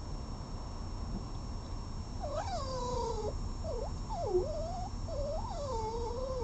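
A cat yowling: a run of drawn-out, wavering calls beginning about two seconds in. The first and last calls are the longest, the first sliding down in pitch.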